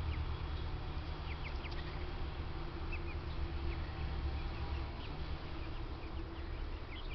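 Ducks foraging and calling, short scattered quacks over a steady low rumble.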